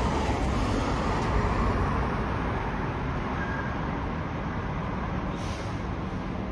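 Road traffic: heavy trucks driving past close by on a multi-lane road, with engines and tyres rumbling. It is loudest in the first couple of seconds and eases slightly after.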